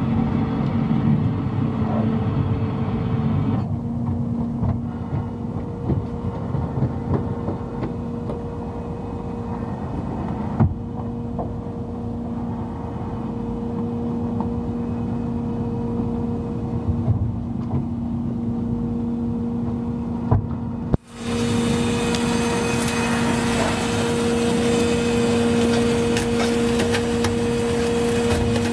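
A small fishing boat's engine running with a steady hum, with a few knocks. About three-quarters of the way through, the sound drops out for an instant and comes back with more hiss over the same hum.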